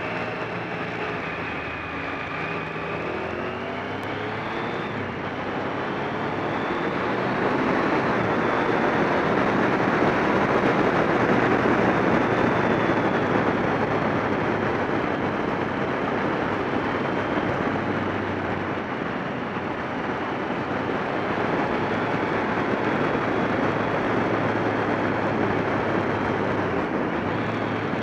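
Motorcycle riding at speed on a mountain road: the engine rises in pitch as it accelerates during the first few seconds, then a heavy rush of wind on the microphone takes over. The wind is loudest about a third of the way in, with the engine's low steady note running underneath.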